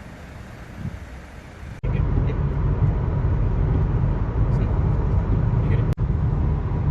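Car running, a steady low rumble of engine and road noise heard from inside the vehicle. About two seconds in, a cut brings a louder, steadier rumble.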